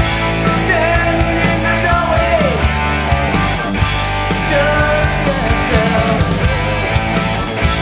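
Studio recording of a hard rock band playing: distorted electric guitars through Hiwatt DR103/DR504 amplifiers, bass through Fane speakers, and drums hitting steadily, with a melody line sliding between notes in the middle.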